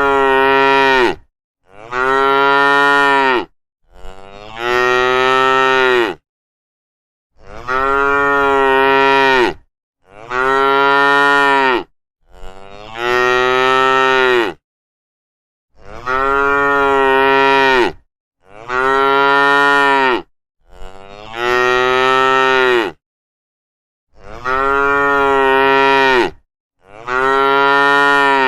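Cows mooing: long, drawn-out moos of about two seconds each, coming in sets of three with silence between, about eleven in all.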